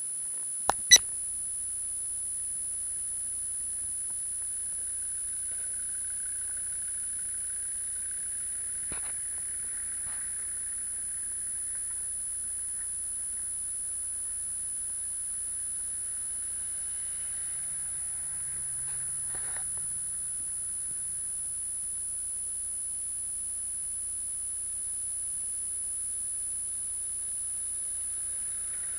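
A steady, very high-pitched electronic tone runs unbroken throughout, with two sharp clicks about a second in. Any vehicle engine sound is at most faint beneath it.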